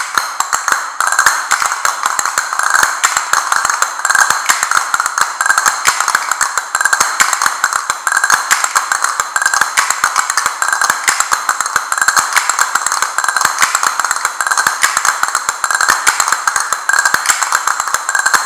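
Two pairs of castanets played together, with rapid clattering rolls and strikes repeated in a continuous pattern.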